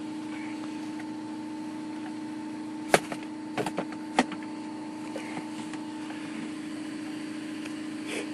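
Clunks from a loose minivan seat being shifted: four sharp knocks about three to four seconds in, the first the loudest, over a steady hum.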